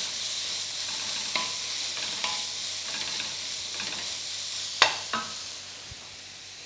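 Onions, spring onions and parsley sizzling in a metal frying pan on high heat while being stirred with a wooden spoon. A few sharp knocks, the loudest about five seconds in, and the sizzle gets quieter near the end.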